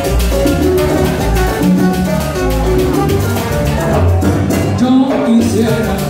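Live salsa band playing, led by congas, timbales and bongos over keyboard and bass, with trombone. The high percussion drops out briefly near the end of the passage.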